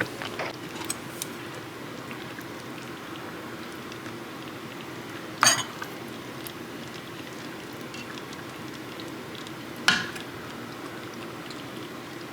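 Soup being ladled into bowls: a ladle clinking against the pot and bowls, with two sharper ringing clinks, one about halfway through and one near the end, over a steady low hum.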